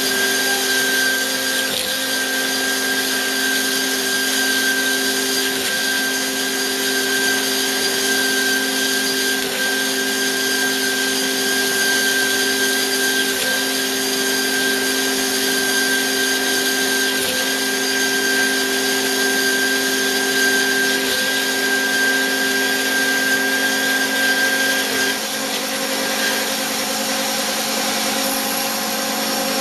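Bigstone CF450 horizontal bandsaw running with a steady whine, a slight regular break in the tone about every four seconds. Near the end the high note drops out and the machine goes on at a lower, changed running sound.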